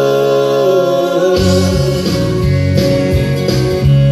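A man's long, held sung note over a country backing track, fading out about a second in; the backing track with guitar carries on alone, with a beat coming in.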